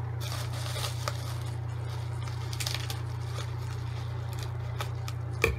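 Bubble wrap rustling faintly as it is handled, then cut with scissors, with a sharp snip near the end, over a steady low hum.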